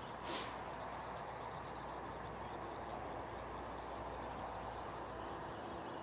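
Steady high-pitched chirring of insects such as crickets, with no breaks.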